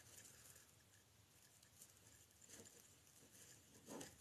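Near silence, with a few faint rustles of deco mesh being handled as a wire is worked through it, one about two and a half seconds in and a slightly louder one near the end.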